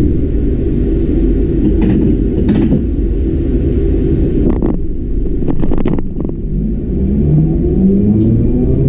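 81-740/741 'Rusich' metro train pulling away from a standstill, heard from the driver's cab. There is a steady low rumble with several clicks and knocks, then from about six and a half seconds a whine from the electric traction drive that rises steadily in pitch as the train picks up speed.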